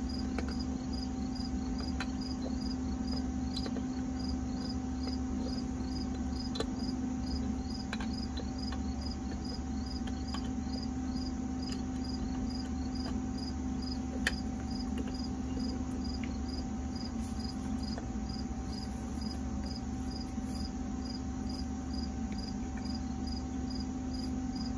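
Crickets chirping steadily, about two chirps a second, over a steady low hum, with a few faint sharp clicks now and then.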